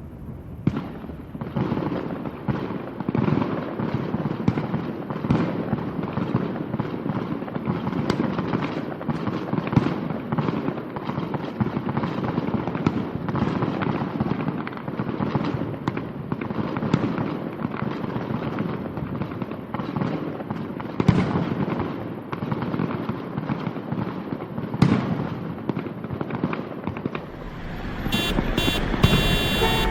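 A fireworks display: a dense, irregular run of bangs and crackling explosions. Near the end a car horn starts sounding in short blasts.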